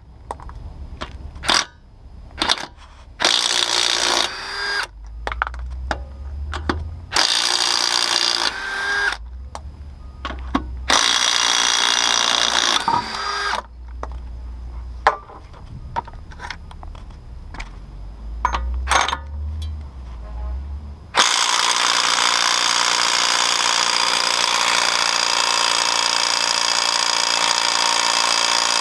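Ingersoll Rand W5152 20 V brushless compact cordless impact wrench running in short bursts of about a second each as it spins lug nuts off a car wheel. Near the end it hammers steadily for about eight seconds on the axle nut.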